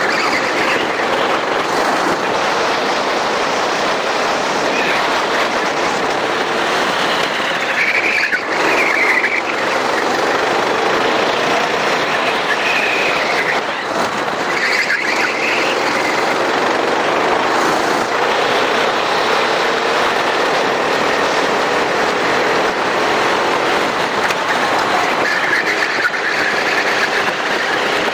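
Racing kart running at speed, its engine note rising and falling through the corners under a steady rush of wind and road noise, with the tyres squealing briefly several times in the turns.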